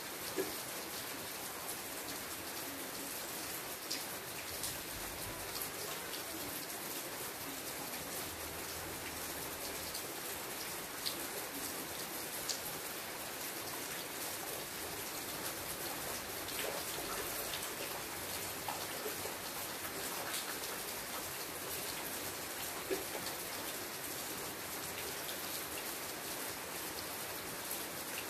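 Steady rain falling, with the sharper tap of a single drop standing out now and then.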